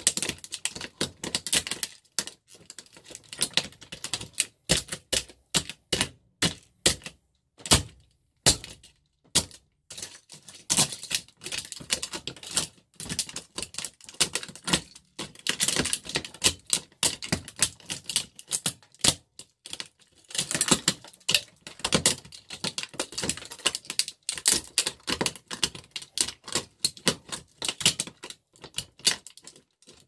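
A plastic TV remote control cracking and crunching under the studs of adidas Predator soft-ground soccer cleats on a wooden floor: a rapid, irregular string of sharp cracks and stud clacks, several a second, with brief pauses between bursts.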